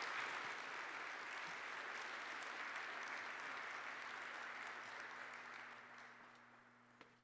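Audience applauding steadily, the clapping fading over the last second or two and then cutting off.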